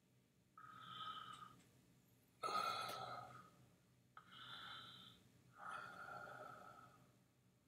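A person breathing faintly through the nose close to the microphone: four breaths of about a second each, the second one starting sharply and the loudest.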